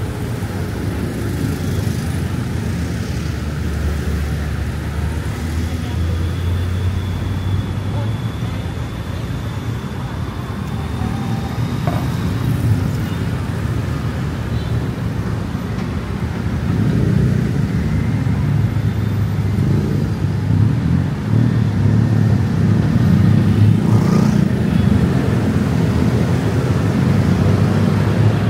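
Busy city road traffic: cars running past on a multi-lane road, a steady low rumble that grows louder a little past halfway.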